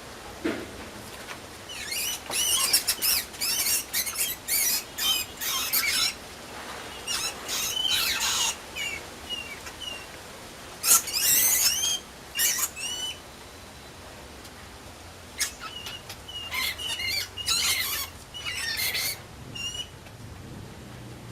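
Mouse squeaking: rapid high-pitched squeals in several bouts, each with quick rising and falling notes, separated by short pauses. The loudest bout comes about halfway through.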